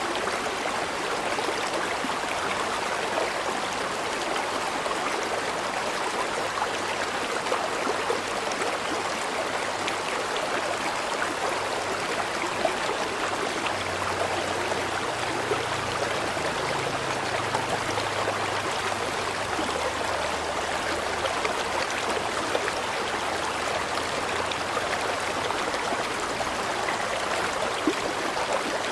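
River water flowing steadily, an even rushing and babbling with no breaks. A faint low hum comes in around the middle and fades again.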